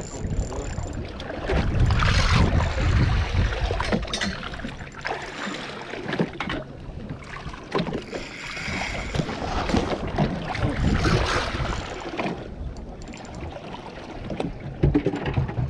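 Wind and sea noise aboard a fishing boat, with gusts buffeting the microphone in a low rumble a couple of seconds in. Scattered knocks come through, the loudest cluster near the end.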